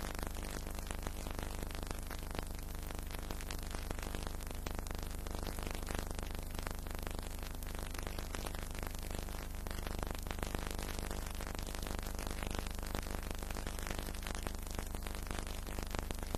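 Steady hiss and crackle with a low, steady hum: the surface noise of an old film soundtrack.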